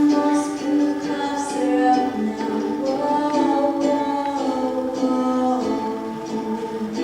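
A small group of singers holding long notes in close harmony, the chord shifting every second or so.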